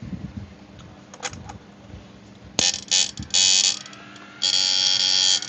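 12-MOSFET, two-transformer 12 V electrofishing inverter being test-fired, giving a loud high-pitched electrical buzz: a few short bursts about two and a half seconds in, then a steady buzz for about a second near the end. A few faint clicks come before it.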